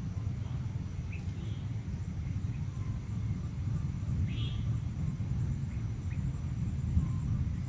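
A few short, faint bird chirps, the clearest about four seconds in, over a steady low rumbling noise.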